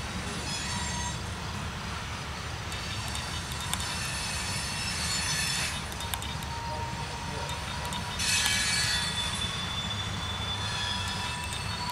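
Loaded coal hopper cars of a freight train rolling past: a steady low rumble of steel wheels on rail, with thin high-pitched wheel squeal on top. The squeal grows louder from about three to six seconds in and again briefly about eight seconds in.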